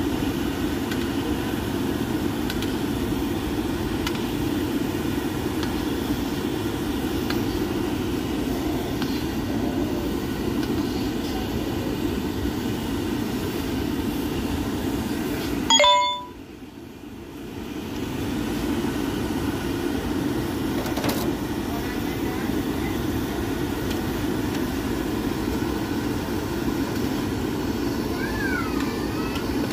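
Gulab jamun deep-frying in hot oil in an iron kadhai, a steady sizzle and bubble. About halfway through, a metal spoon strikes the kadhai once with a short ringing clink, and the sizzle drops low for a couple of seconds before coming back.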